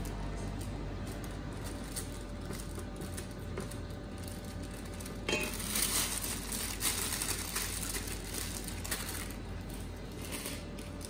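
A spatula knocks once against a stainless steel mixing bowl about halfway through, followed by a few seconds of a plastic piping bag crinkling as cream cheese filling is worked down into it, over a steady low hum.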